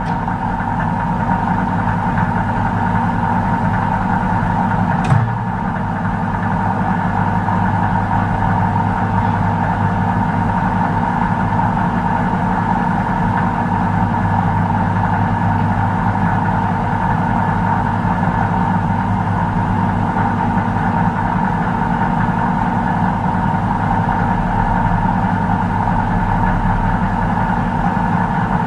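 Microwave oven running: a steady electrical hum with a low drone and a higher tone held above it, broken by one sharp click about five seconds in.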